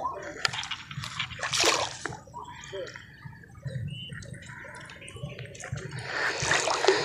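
Lake water splashing and dripping at the shoreline, in two short noisy bursts about one and a half seconds in and again near the end, with scattered small drips and clicks between.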